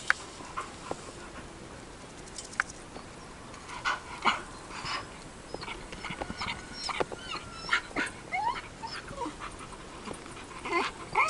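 Dog whining in many short, high whimpers that rise and fall in pitch, coming in quick succession from about four seconds in.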